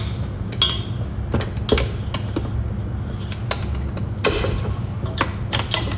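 Scattered light clicks and knocks, about a dozen, from utensils being handled on a kitchen counter, over a steady low hum.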